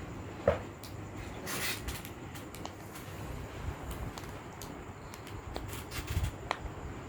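Scattered small clicks and brief plastic rustling as a fidget toy is handled and pulled out of its plastic packaging, with one sharper click about half a second in.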